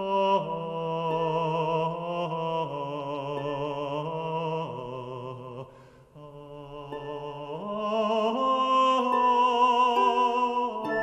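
Slow music with long held notes carried on a wavering vibrato; it fades almost to nothing about six seconds in, then swells back louder.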